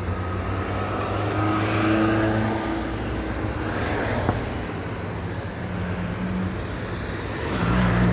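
Traffic noise: cars passing, over a steady low engine hum. A single light click about four seconds in comes as the phone is lifted from its box.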